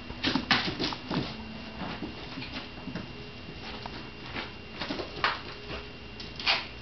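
Shiba Inu puppy scuffling on a towel over a hardwood floor: claws scrabbling on the boards and the cloth rustling in irregular bursts, the loudest about half a second in, around 5 s and near 6.5 s.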